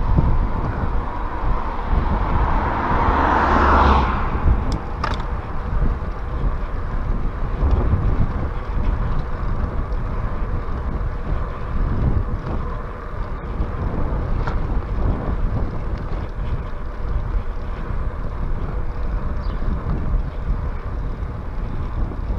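Wind buffeting the microphone of a handlebar camera on a moving bicycle, over a steady low road rumble. A hiss swells about two seconds in and cuts off at about four seconds, followed by a couple of light clicks.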